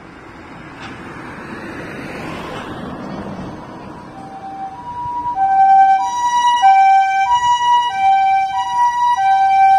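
Japanese ambulance pulling out, its engine and tyre noise growing for the first few seconds. About four seconds in, its two-tone "pii-poo" siren starts, alternating a high and a low note and quickly becoming loud.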